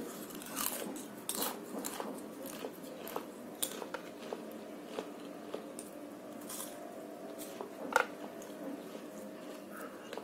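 Close-up eating sounds: crisp jalebi bitten and chewed, with scattered sharp crunches, the loudest about eight seconds in.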